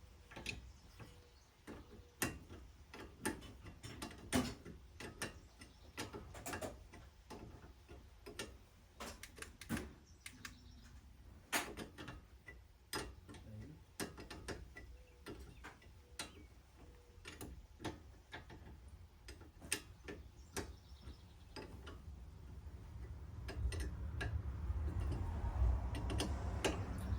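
Irregular sharp clicks and clinks of metal hand tools being handled while working on a car's brakes, with a low rumble building near the end.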